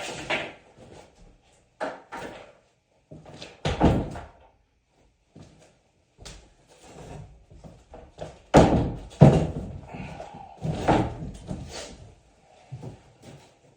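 A door being pushed and banged shut, a series of heavy thuds and knocks spread over several seconds. The loudest bangs come about two thirds of the way through.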